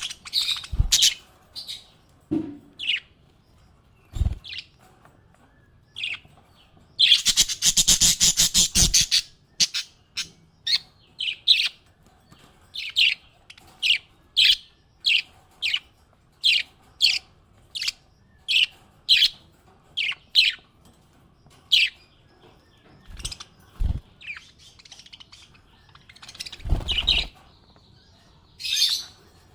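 Small pet parrot chirping: a burst of rapid, loud chatter, then a long run of short high chirps at about two a second, with a few dull low thumps.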